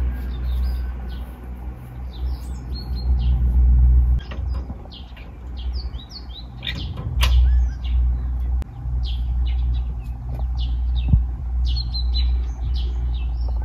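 Small birds chirping in many quick, short high calls, over a loud low rumble that rises and falls.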